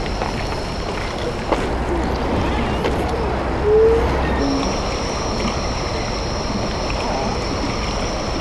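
Steady harbour-side ambience: a noisy wash of water and wind with a low rumble underneath, a single click about a second and a half in, a short squeak a little before halfway, and a thin steady high tone from about halfway on.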